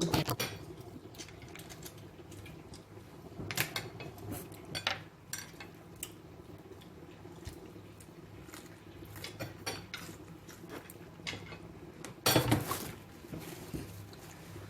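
Cutlery and dishes clinking and clattering in scattered light clicks, with a louder clatter about twelve seconds in.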